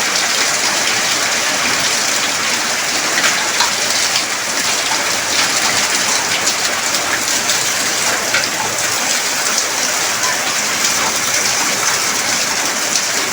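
Heavy rain pouring down: a loud, steady hiss with scattered fine ticks of individual drops.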